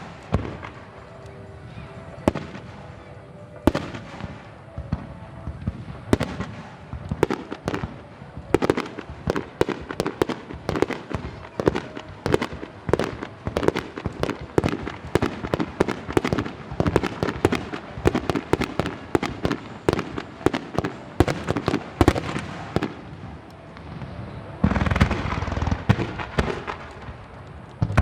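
Aerial firework shells bursting in a dense barrage of sharp bangs that come faster through the middle, then merge into a loud, continuous stretch of bursts near the end.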